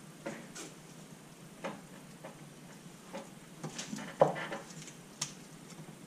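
Scattered light clicks and knocks of metal engine parts and small bolts being handled on a workbench, with one sharper knock about four seconds in.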